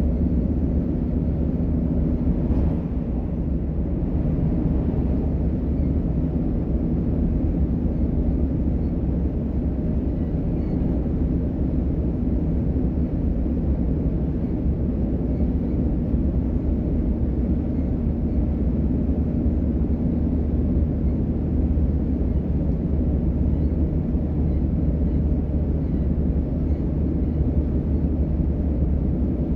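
Interior of a DB Class 425 electric multiple unit running between stations: a steady rumble of wheels on rail and traction equipment, with faint steady tones underneath.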